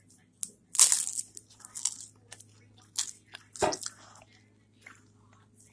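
Crunching bites and chewing of a puffed rice cake sandwich spread with peanut butter: a loud crisp crunch about a second in, then several more crunches. A dull thump comes about three and a half seconds in.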